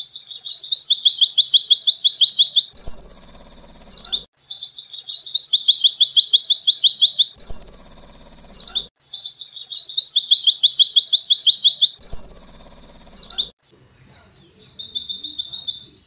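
White-eye (pleci) singing a canary-style song: a fast run of sharp falling notes that runs into a dense, high trill, the same phrase three times over. Near the end a fainter, different song phrase takes over.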